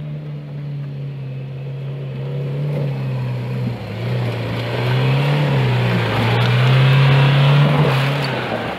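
Off-road vehicle's engine running hard under load, its revs dipping and rising again as it works over the ground, growing louder toward the end.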